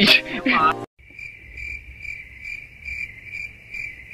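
Stock cricket-chirping sound effect, a high chirp repeating about twice a second, the comedic 'awkward silence' gag; it starts abruptly about a second in after a brief voice and cuts off abruptly.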